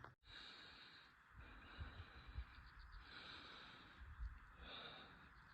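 Near silence: faint outdoor ambience with a few soft low thumps.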